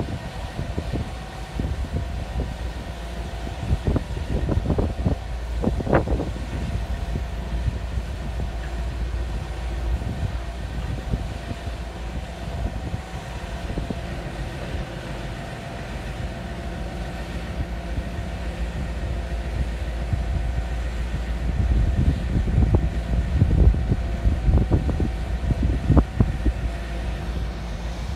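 Harsco rail-grinding train rolling slowly past, its diesel engines running with a steady low hum. The wheels knock over the rail joints in quick clusters about four to six seconds in and again, louder, near the end.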